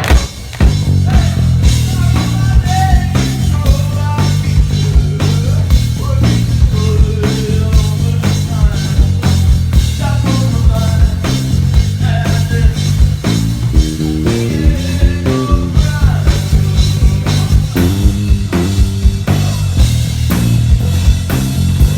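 Live band playing amplified rock music: a steady drum beat over a pulsing bass line, with guitar and melody lines above, kicking in hard about half a second in.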